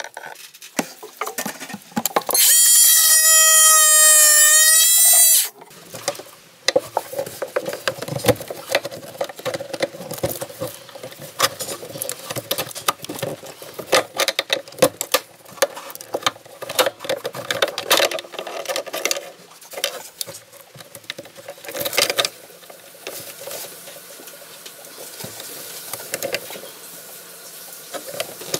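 A hand tool scraping and prying at a black ABS plastic shower drain flange and its nut, making irregular clicks and scrapes. Near the start there is one loud squeal lasting about three seconds.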